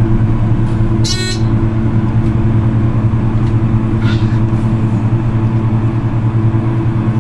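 Steady low hum of a ThyssenKrupp hydraulic elevator in motion, heard inside the car. A brief high-pitched sound cuts in about a second in.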